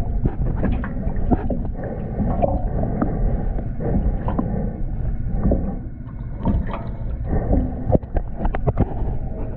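Underwater sound picked up by a GoPro held beneath the surface: a steady muffled low rush of water with scattered sharp clicks and knocks.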